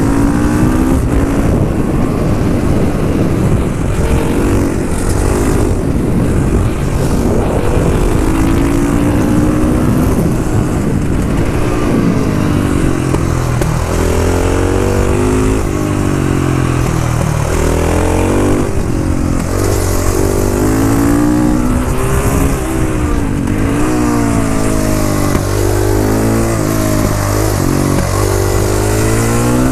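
KTM 500 EXC's single-cylinder four-stroke engine under way, its pitch rising and falling again and again as the throttle is opened and closed and the gears change.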